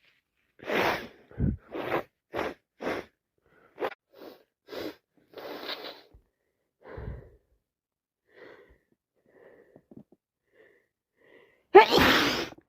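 A person with a cold and allergies sneezing over and over: a run of short sneezes in the first few seconds, quieter breaths after them, and one loud sneeze near the end.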